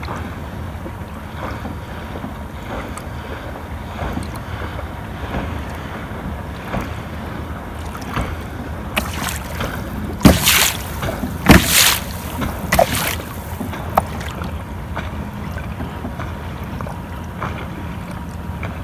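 A canoe moving over calm water, with a steady low rumble of wind on the microphone and faint small water sounds. A few louder brief noises come in a cluster about halfway through.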